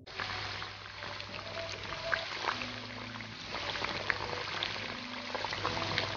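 Hot oil sizzling steadily, with many small crackles and pops, as thin potato fries deep-fry in a tiny wok.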